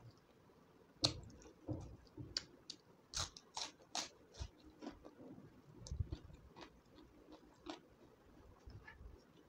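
Wet chewing and mouth clicks from eating a mouthful of rice and dal fry by hand, with squishing as fingers mix the rice and dal on a steel plate. The clicks come thickest about three to four seconds in.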